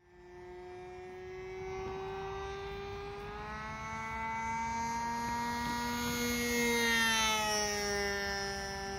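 Engine of a propeller aircraft flying past: one steady droning engine note that grows louder, with its pitch edging up, until about seven seconds in, then slides down in pitch and fades a little as the aircraft passes.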